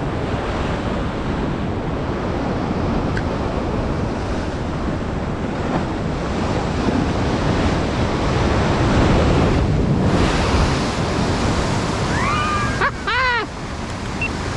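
Sea surf washing steadily, with wind on the microphone. A few short, pitched calls sound near the end.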